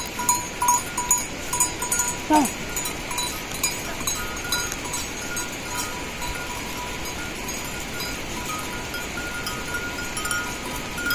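Small livestock bells clinking irregularly in short ringing strikes over a steady hiss. A brief falling call comes about two and a half seconds in, and the clinking thins out after about five seconds.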